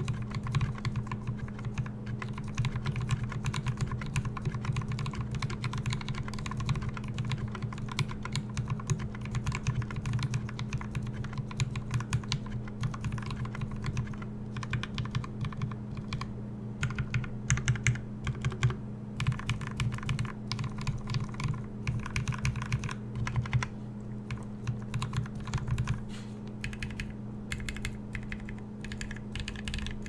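Fast, steady typing on a Fox Lab Orange 75 mechanical keyboard: lubed and filmed vintage Cherry MX Black linear switches in an aluminium plate with dampening foam, under GMK keycaps. The sound is a dense run of key clacks over a steady low hum. Near the end, keystrokes on the full-brass Orange Pad numpad join in.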